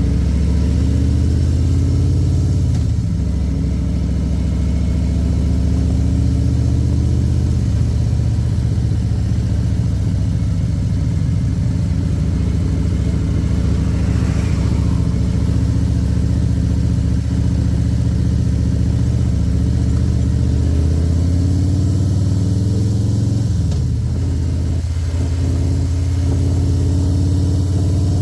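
Harley-Davidson Milwaukee-Eight V-twin engine running under way on a road ride. Its pitch dips and climbs again about three seconds in and again near the end, as the bike slows and picks up speed.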